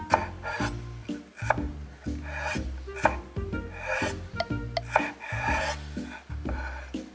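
Chef's knife cutting a cucumber slice into strips on a wooden cutting board: repeated crisp cuts, blade scrapes and taps on the wood, about one every second. Background music with a steady bass line plays underneath.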